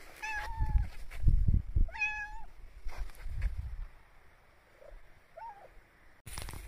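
Domestic cat meowing: two clear meows in the first two and a half seconds, then a short, fainter one about five and a half seconds in. Low rumbling bursts sit underneath the first two meows.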